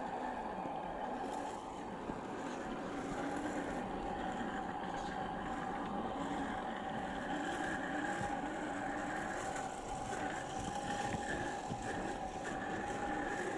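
1/10-scale RC crawler truck's brushed electric motor and gearbox whining steadily as it crawls slowly over dry, cracked mud.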